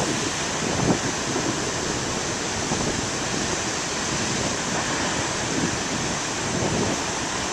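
Ocean surf: big waves breaking and washing ashore in a steady rush of noise, with some wind buffeting the microphone.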